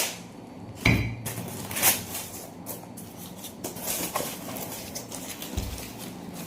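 A ceramic teapot being unpacked and handled: scattered knocks and clinks of packaging and ceramic, the sharpest with a brief ring about a second in, and a dull thump near the end.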